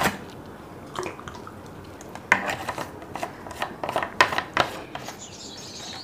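Irregular light clicks and taps, with a faint high chirping near the end.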